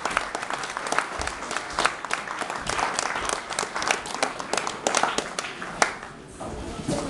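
Audience applauding, dense hand claps that die away about six seconds in.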